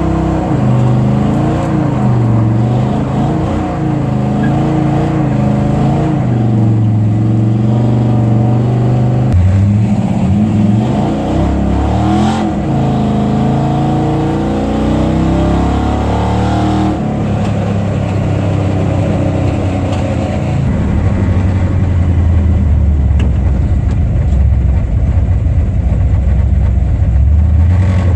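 Car engine running under load, its pitch rising and falling as it accelerates, with abrupt pitch changes about nine and seventeen seconds in.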